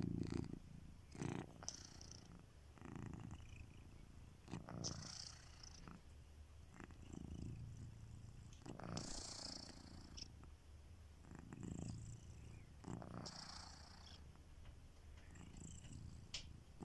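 Sleeping domestic cat snoring softly, a soft rasp on each breath, repeating every one to two seconds.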